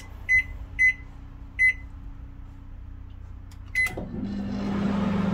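Microwave oven control panel beeping three times as the cooking time is keyed in, then a fourth beep near four seconds in as it is started, followed by the oven's steady hum as it begins running.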